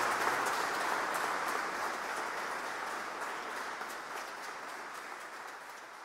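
Audience applause, a dense patter of clapping that fades steadily away.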